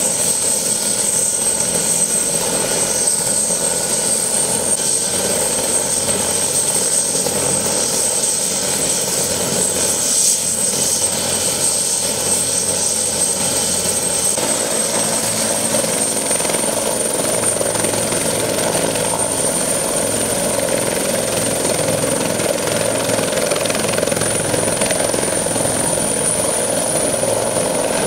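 Bell 412 twin-turbine helicopter running on the ground with its main rotor turning: a steady rush of rotor and engine noise under a thin, high turbine whine that edges up in pitch in the second half.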